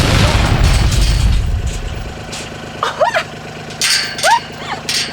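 Utility vehicle engine running steadily at low revs. A loud rushing noise fills the first two seconds, and a few short rising-and-falling calls come later on.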